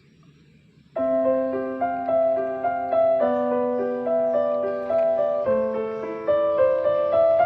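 Background piano music: after about a second of near quiet, soft piano chords and a slow melody begin.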